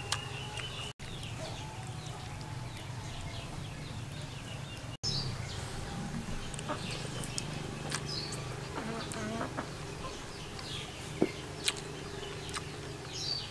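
Farmyard ambience: a steady low buzz with chickens clucking and cheeping, and a few sharp clicks near the end, such as a spoon against a dish.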